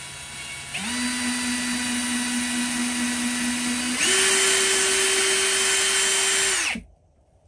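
Cordless drill boring a hole into a wooden rifle stock with a larger bit, enlarging the hole for the rear sling stud. The motor whine starts slow, speeds up about a second in, jumps higher again around four seconds, then stops abruptly near the end.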